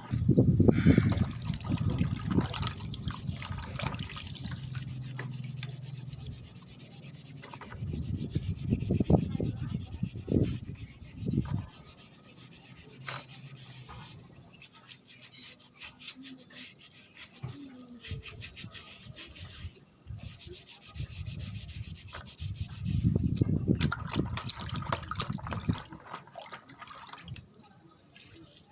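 Hand rubbing or scrubbing strokes on the metal heating head of a cotton candy machine as it is smoothed and cleaned. The rubbing comes in three louder spells, near the start, around the middle and near the end, with softer scraping in between.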